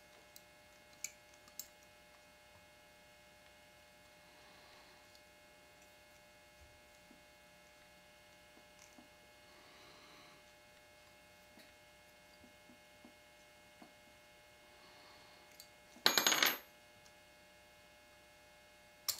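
Faint small ticks and scrapes of steel scribes in a Winchester 1903 rifle bolt. About three-quarters of the way through comes a short, loud metallic clatter with a bright ring as the extractor and its spring come free and drop out.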